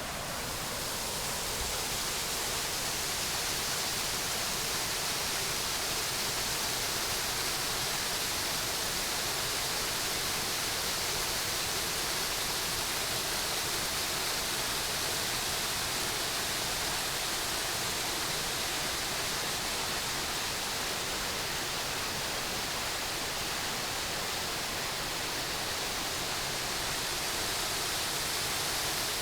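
Loud, steady rush of a waterfall in full spate, swollen by heavy rain, with the hiss strongest in the high range. It grows a little louder in the first couple of seconds, then holds steady.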